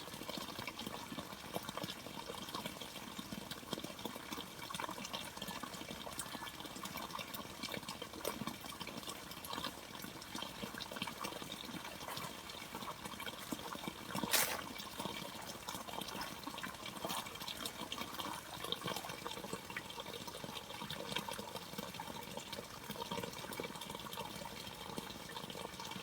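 Running water splashing steadily, with one sharper click about halfway through.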